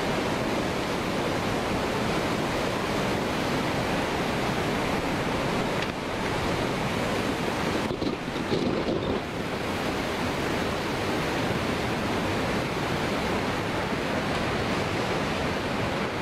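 Floodwater from a sea surge rushing and churning through a harbour and flooded streets: a steady, dense roar of water, briefly louder about nine seconds in, with wind buffeting the microphone.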